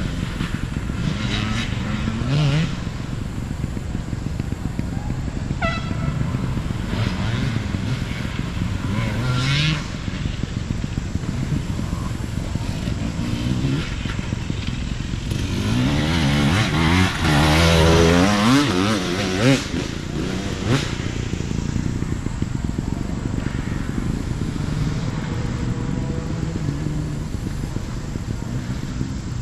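Hard enduro dirt bike engines revving up and down as riders work the bikes through the course, with a burst of hard revving about two-thirds of the way through.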